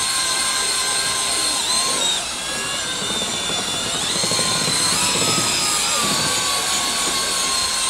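Electric whisk mixer spinning in a stainless steel bowl of pastry batter: a steady motor whine that dips in pitch about two seconds in and shifts again around five seconds as the load changes.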